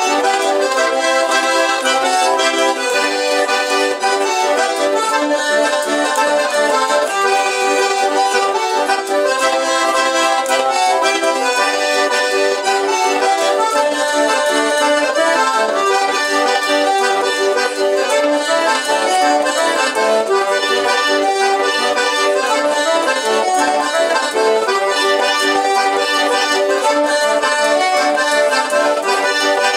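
Two button accordions playing a chamamé together, sustained chords and melody notes at an even, loud level.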